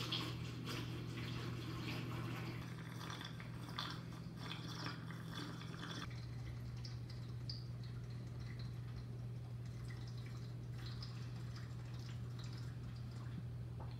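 Quiet room tone with a steady low hum. Scattered light clicks and taps come in the first six seconds, then thin out.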